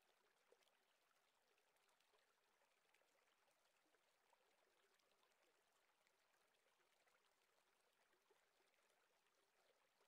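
Near silence: the sound track drops out to a faint hiss.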